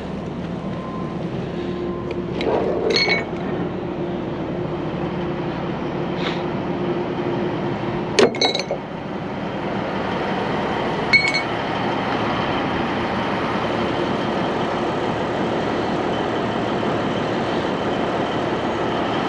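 Peterbilt cabover semi's diesel engine idling steadily, with sharp metallic clinks about three, eight and eleven seconds in, the middle one loudest and doubled, as the tie-down straps and their metal hooks are rolled up and put away.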